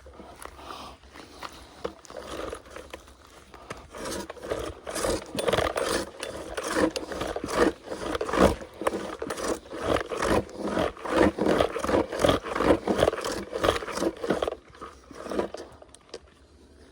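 Dense, irregular crackling, snapping and scraping of brush and branches being broken. It builds up about four seconds in and dies away near the end.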